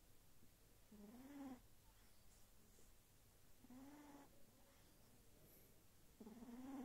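Sphynx kitten snoring faintly in its sleep: three short, pitched snores, each rising and then falling in pitch, about two and a half seconds apart.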